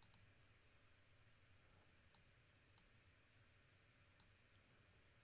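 Near silence: faint room tone with four soft, sharp clicks spread across a few seconds, from a computer mouse being clicked.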